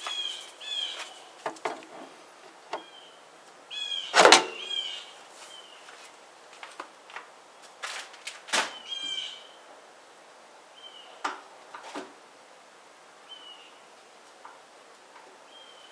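Scattered sharp clicks and knocks as the metal retaining clips are worked out of a new lift-gate gas strut's end fittings, the loudest about four seconds in. Small birds chirp throughout.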